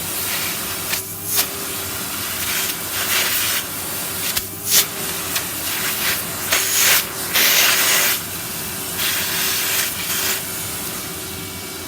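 Vacuum cleaner running with a steady motor hum and a loud rush of suction air that swells and drops repeatedly as the nozzle is moved about and partly blocked.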